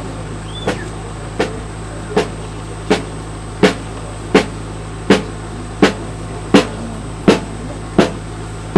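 A marching band's drum beating a slow, steady step, one stroke about every 0.7 seconds, growing louder as the band approaches, over a steady low hum.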